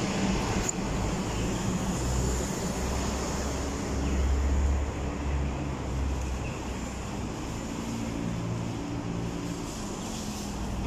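City street traffic: motor vehicles running and passing, with a low engine rumble that swells briefly about four seconds in.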